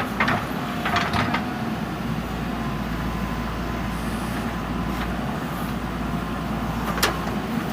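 JCB 3DX backhoe loader's diesel engine running steadily, with a few short sharp knocks near the start, about a second in and about seven seconds in.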